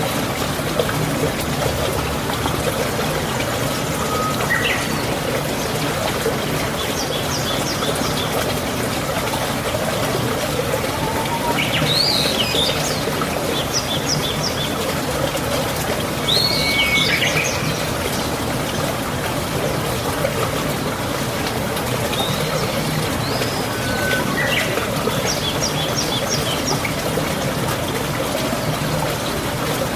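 Birds chirping in short runs of quick high notes and brief sweeping calls every few seconds, over a steady sound of running water.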